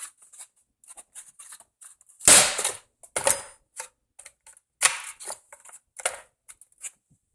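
Hard plastic accessory case being handled and shut: a series of sharp plastic clicks and snaps, the loudest about two seconds in, with smaller ticks and clatters between.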